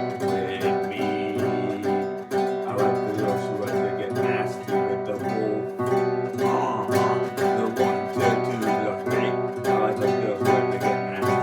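Music: acoustic guitar strummed and plucked with a steady beat.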